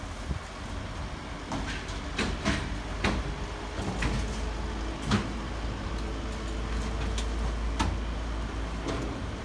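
Heavy diesel engine running steadily, its low drone growing stronger about four seconds in, with scattered sharp knocks and bangs through it.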